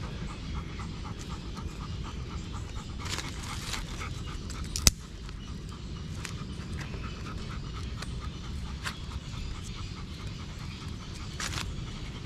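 German shepherd panting in a quick, even rhythm close by. A single sharp crack about five seconds in, with brief rustling now and then.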